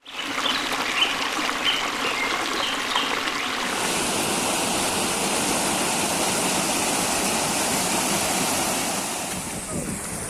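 Stream water rushing and splashing steadily, with a few short high chirps in the first few seconds; a steady high-pitched hiss joins in about four seconds in.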